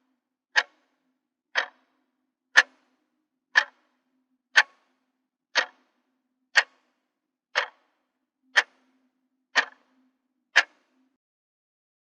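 Alarm clock ticking at one tick a second, eleven sharp ticks, then stopping.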